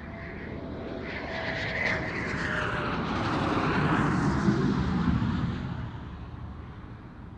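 Eurofighter Typhoon jet, with twin EJ200 turbofans, passing by. The engine noise swells to a peak about four to five seconds in with a falling whine, then fades away.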